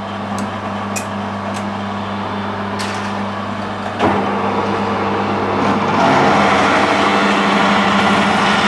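Metal lathe motor humming with the chuck stopped and a few light clicks, then a clunk about four seconds in as the spindle starts turning again. From about six seconds a twist drill cuts into 316 stainless steel bar with a louder, steady cutting noise.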